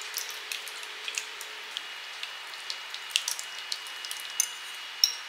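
Beaten egg mixture poured into a hot oiled skillet: a faint sizzle with scattered light crackles and pops, and one sharper click near the end.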